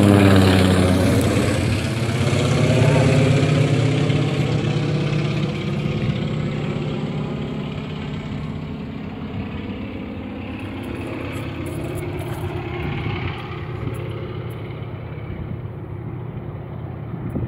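Antonov An-2 biplane's nine-cylinder radial engine and propeller droning as the plane flies away after a low pass. The pitch drops just at the start, then the steady drone slowly fades.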